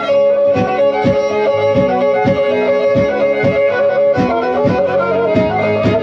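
Black Sea kemençe, the small three-stringed bowed fiddle, playing an instrumental horon tune with a steady beat of about two strikes a second underneath.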